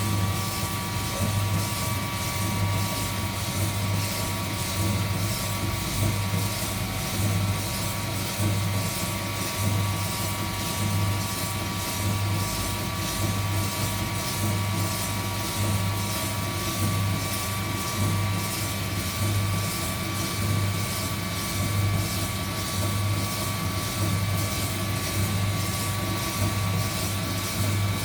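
Heat gun blowing steadily, its fan motor whining at a fixed pitch, over a low hum that swells and fades about once a second, as from the roaster's turning drum or stirrer.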